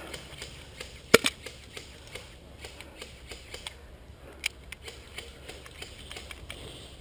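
Gas airsoft pistol being reloaded by hand: a sharp click about a second in as the magazine is seated, then fainter handling clicks and a smaller snap near the middle.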